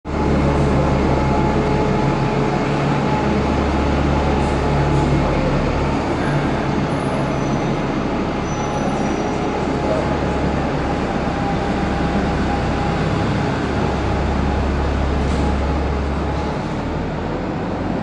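Diesel bus engine running at a steady idle, a loud deep hum that wavers a few times and eases off shortly before the end.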